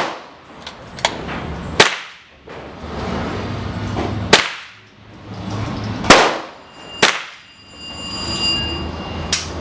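Gunshots at a shooting range: six shots at irregular intervals, the louder ones trailing off in an echoing tail, the softer ones short cracks. A faint, steady, high ringing tone sounds a little before the last shot.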